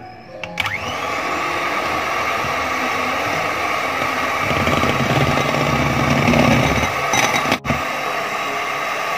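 Electric hand mixer running steadily, its beaters creaming butter and powdered sugar into buttercream. The motor starts about half a second in and drops out for an instant about three-quarters of the way through.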